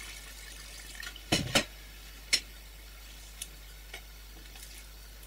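Kitchenware knocking and clinking: two sharp knocks close together about a second and a half in, another a second later, then a couple of faint ticks, over a low steady hiss.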